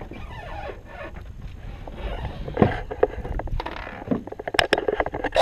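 Water slapping and lapping against a fiberglass boat hull, with wind rumbling on the microphone, becoming a run of sharp, irregular slaps near the end.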